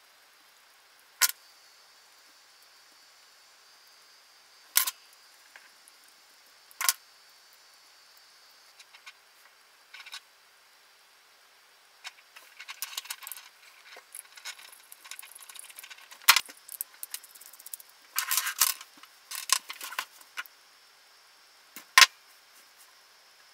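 Small plastic and metal parts of a wall plug clicking and clinking against a wooden tabletop and a small screwdriver as the plug is assembled. Single sharp clicks come a few seconds apart, with a busier stretch of light rattling and scraping about halfway through, and one more sharp click near the end.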